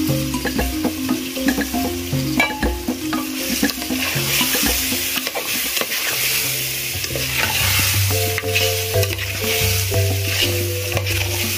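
Vegetables sizzling as they fry in a pan, stirred with a spoon that clicks and scrapes against the pot. Background music with steady bass notes plays under it.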